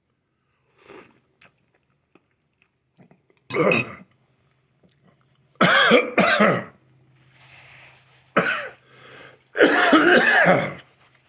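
A man coughing several times in separate fits, with throat clearing, the last fit the longest, after choking on some of a ghost pepper soup's broth, which he puts down to inhaling it or to the heat.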